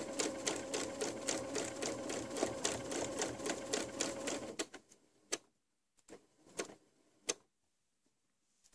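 Domestic electric sewing machine stitching a seam through cotton patchwork pieces, its needle strokes coming about five a second over a steady motor hum, and stopping about four and a half seconds in. A few separate clicks follow.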